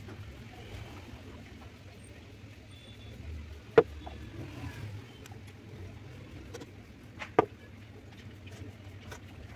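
A painted glass bottle and a paintbrush handled on a painting board, giving a sharp knock about four seconds in and two more close together after seven seconds. A steady low rumble runs underneath.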